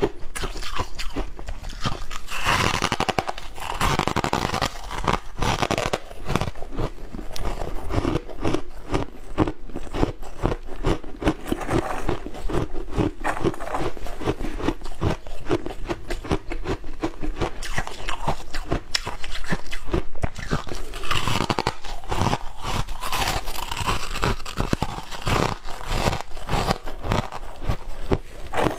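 Refrozen shaved ice being bitten and chewed close to a clip-on microphone: a dense, continuous run of crisp, crackling crunches.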